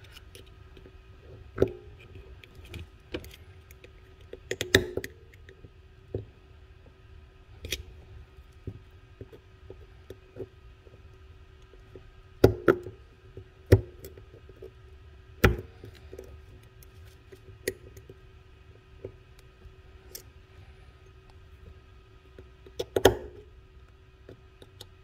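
Irregular small metallic clicks and taps of a screwdriver tip working a piston lock ring into the bore of a 1985 Yamaha VMax brake master cylinder, pressing it to seat fully in its groove. There are about a dozen sharp ticks, a few in quick clusters, the loudest around a fifth of the way in, in the middle and near the end, over a faint steady hum.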